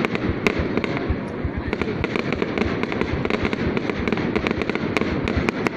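Fireworks going off without a break: a dense crackle with many sharp bangs overlapping, several a second.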